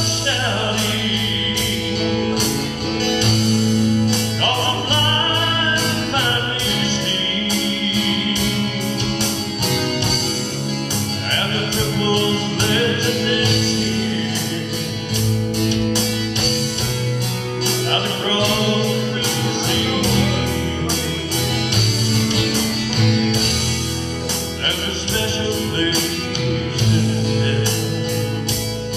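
A man singing a gospel song, accompanying himself with steady strumming on an acoustic guitar.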